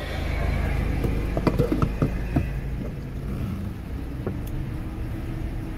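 Car engine running at idle, heard from inside the cabin, with a few sharp clicks and knocks between about one and two and a half seconds in.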